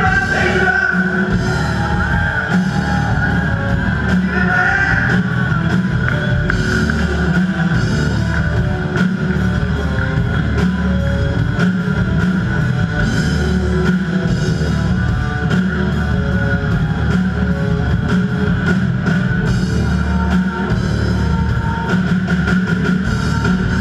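Live rock band playing loudly, with a drum kit and electric guitars.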